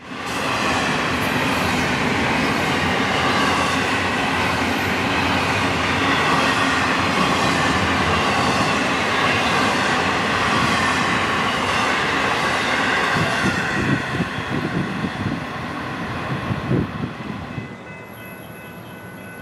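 Florida East Coast mixed freight train's cars rolling past on the mainline, a steady rail noise that holds for about fourteen seconds and then fades away as the train moves off.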